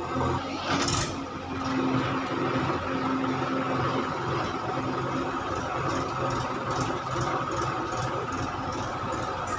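An engine running steadily, with a short noisy burst about a second in.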